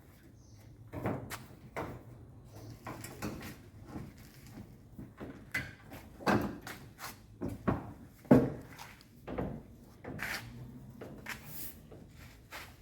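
Irregular knocks, clunks and scrapes from sheet-metal dryer parts being handled and fitted into place by hand, with the loudest clunk about eight seconds in.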